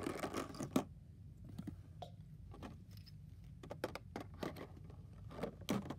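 Small plastic toy miniatures and a plush toy being handled and set down in a box: scattered light clicks and rustles, with a brief rustle at the start and a sharper knock near the end.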